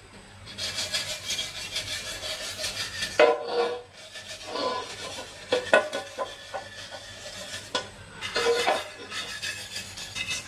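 Scraping and rasping from hand work on a part, in quick repeated strokes, with a few sharp knocks about three seconds in and again near six seconds.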